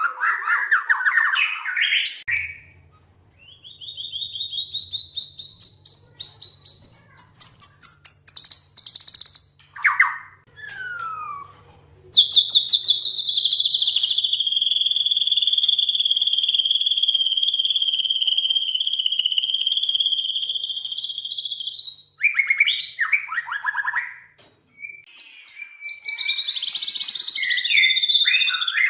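White-rumped shama singing: varied whistled phrases, a quick run of notes rising in pitch, then one long high trill held for about ten seconds, then more varied phrases near the end.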